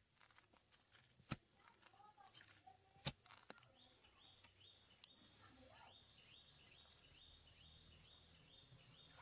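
A hand digging tool chopping into garden soil, with two sharp strikes a couple of seconds apart. From about four seconds in, a bird repeats a short rising call about twice a second.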